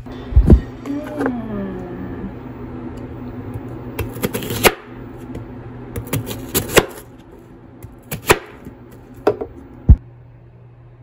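Household work sounds: a string of sharp knocks, clicks and short clatters over a steady low hum, with a brief falling tone about a second in and a cluster of clattering knocks around the middle.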